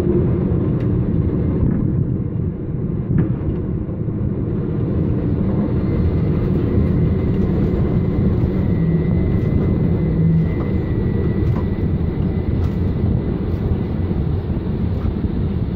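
Steady low rumble and drone of a ship-to-shore tandem container crane at work while its twin spreaders are lowered into a ship's hold, with a faint high whine running through it.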